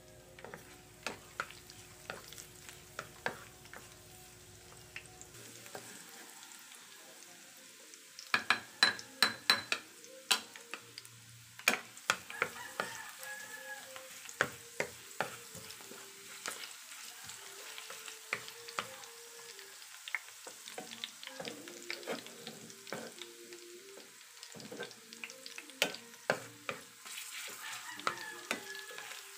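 Chopped garlic sizzling in hot oil in a nonstick frying pan while a wooden spatula stirs it, with many sharp clicks and taps. The clicks come thickest about eight to twelve seconds in.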